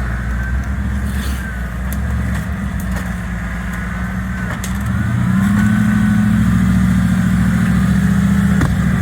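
Off-road rig's engine running under load, revs rising about five seconds in and then holding higher.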